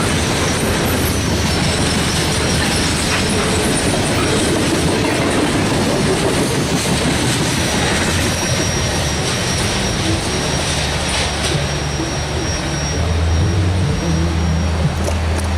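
Coal train cars rolling past on steel rails: a steady rumble of wheels with a clickety-clack over the rail joints. A thin, high wheel squeal runs through the second half.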